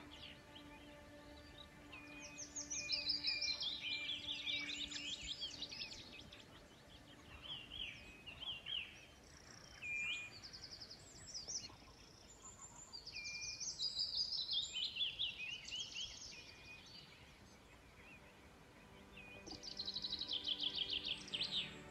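Small songbird singing: quick trills that fall in pitch, each phrase two to three seconds long, sung three times, with short single chirps between. Faint soft music runs underneath.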